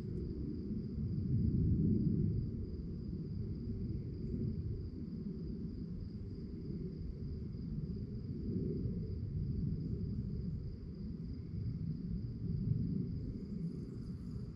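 Crickets trilling steadily, one high unbroken note, over a louder low rumble that swells and fades.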